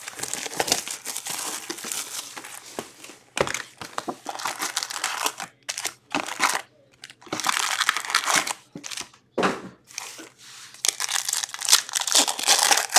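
Crinkling and tearing of plastic and foil wrappers as a box of Upper Deck Series 2 hockey cards and its packs are opened, in several bursts with short pauses between them.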